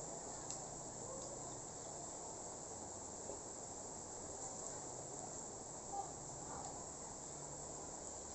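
Steady high-pitched chirring of crickets or similar insects, with a few faint ticks.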